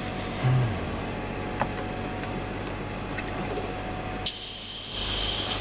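Airbrush spraying paint: a steady hiss of air and paint that starts sharply about three-quarters of the way through, over a low steady hum.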